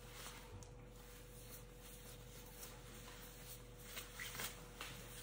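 Faint rustling of wet hair being handled and combed, with a few soft comb strokes close together about four seconds in, over a steady faint hum.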